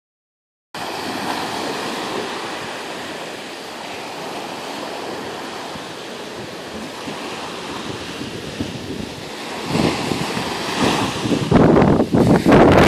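Small ocean waves washing up and drawing back on a sandy beach, a steady surf wash. From about ten seconds in, wind buffets the microphone in gusts that grow loud near the end.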